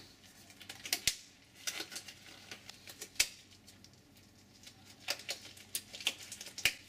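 Disposable gloves being taken from their packet and tugged onto the hands: irregular rustling and crinkling with a few sharp snaps, the sharpest about three seconds in.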